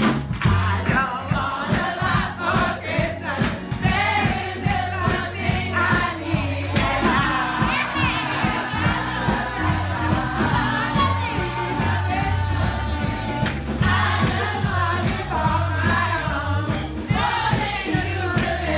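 Background music with a steady beat and a bass line, under several voices singing together.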